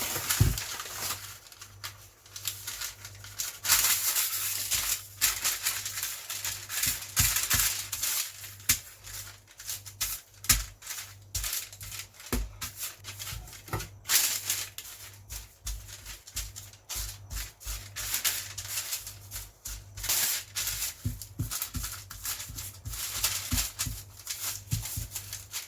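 Crinkly rustling and scraping that keeps going, dotted with many light clicks and knocks, with a steady low hum underneath.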